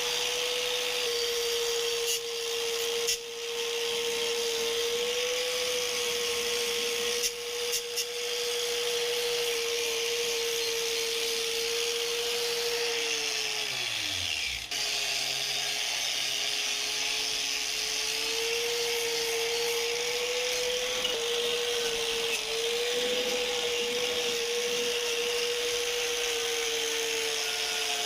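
Electric power tool motor running with a steady whine over a hiss. About halfway through the pitch drops sharply, as if pulled down under load or let off, then it comes straight back up to speed and runs on.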